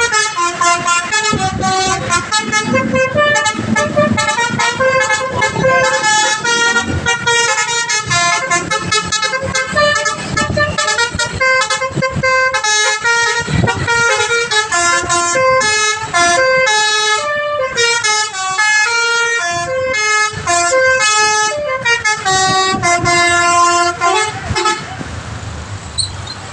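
Telolet multi-tone bus horn (actuator set with pianika and basuri voices) playing a long, fast melody, its notes stepping up and down every fraction of a second, until it stops near the end.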